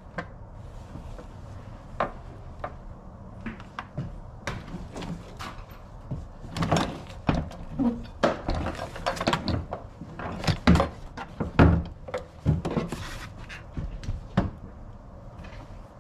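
A 1995 Toyota Avalon's rear seat being worked loose and lifted out of the car: a run of knocks, thumps and rustles, sparse at first, then busiest and loudest in the middle, the loudest about eleven and a half seconds in.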